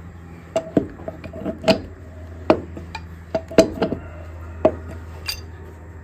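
Lug wrench clinking and knocking on the wheel nuts of a tractor's steel front rim as the nuts are run on and tightened: about a dozen irregular sharp metal clinks over a low steady hum.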